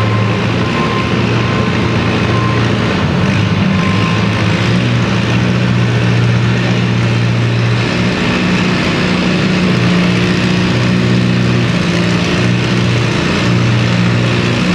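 Antique farm tractor's engine running loud and steady under load as it pulls a weight-transfer sled at low speed; its tone shifts slightly about eight seconds in.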